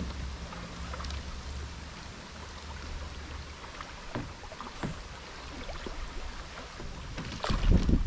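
Water lapping and splashing around a bamboo river raft, with scattered small splashes and knocks over a low rumble. A louder rumble comes in near the end.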